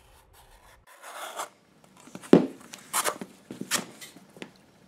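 Wooden Craftool strap cutter's blade drawn through veg-tan leather, a rasping cut about a second in. A sharp knock and several short scraping strokes of the leather follow.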